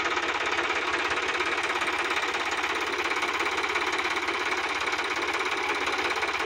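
Sonalika DI-50 RX tractor's diesel engine running steadily with a fast, even clatter, pulling a loaded trolley through mud.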